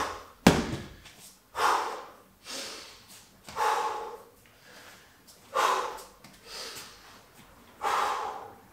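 A Suples Bulgarian bag dropped onto a gym mat with one thud about half a second in. It is followed by a man's heavy breathing, a loud breath about once a second, as he recovers from the exertion of the exercise.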